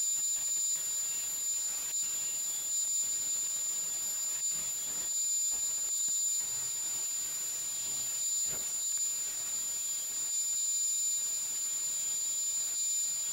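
Bandsaw running and cutting a poplar board: a steady high-pitched whine over a constant hiss.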